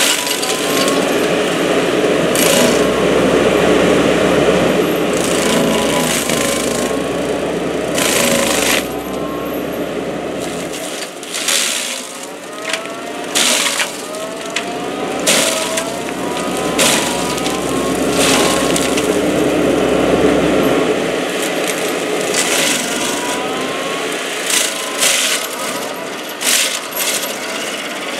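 FAE SCL/EX/VT excavator-mounted stump grinder running, its toothed rotor grinding into wood and soil with a steady grinding din broken by repeated sharp bursts of chips striking. Short rising whines come through several times over it.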